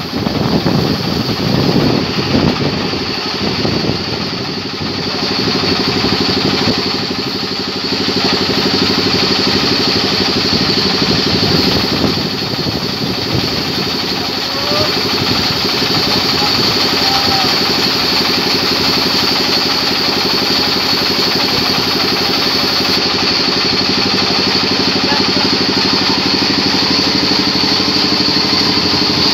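Large band sawmill cutting through a log, over the steady running of the engine that drives it, with a steady high whine above the engine's hum.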